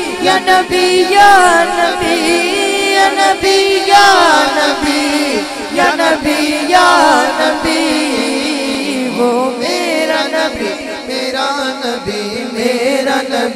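A boy's voice singing a naat, an ornamented melody of wavering, sliding and long-held notes, over a low steady drone.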